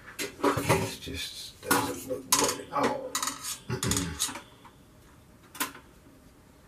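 Wire freezer baskets rattling and clinking in a string of quick bursts over the first four seconds or so, then one more clink near the end.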